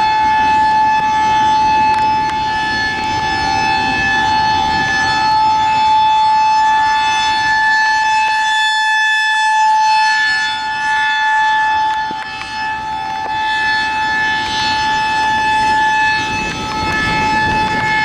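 Federal Signal 2001-SRNB electronic outdoor warning siren sounding a high-pitched steady tone for a tornado warning. It swells and fades as the rotating horn turns toward and away.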